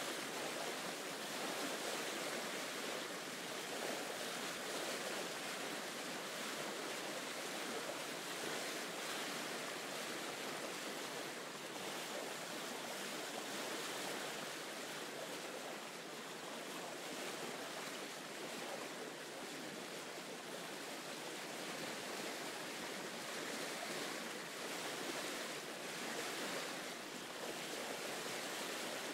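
Ocean surf washing in, a steady rush of waves.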